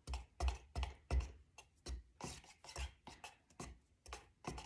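Wooden stir stick stirring primer in a metal paint can, scraping and knocking against the can's sides and bottom in a steady rhythm of about three strokes a second.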